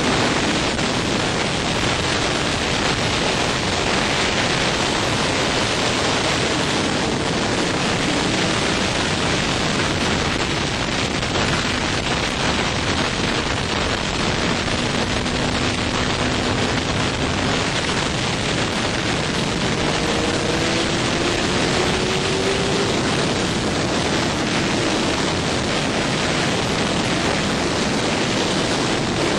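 Steady, loud wind rush over a motorcycle-mounted camera microphone at track speed on a Suzuki GSX-R1000 K7. The inline-four engine's note is faint beneath it and rises in pitch a few times in the second half.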